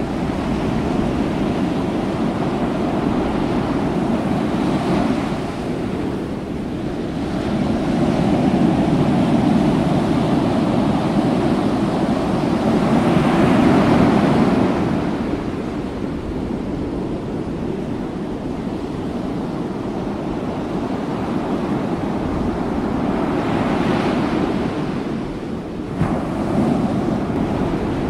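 Wind buffeting the microphone over open sea noise: a steady rushing that swells louder and eases off every few seconds, with an abrupt change in the noise near the end.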